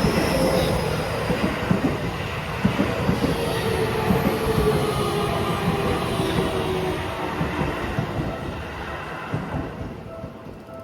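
Seibu 30000 series electric train passing over the level crossing: wheels clattering over the rail joints, with a slowly falling whine. It fades away near the end as the train moves off.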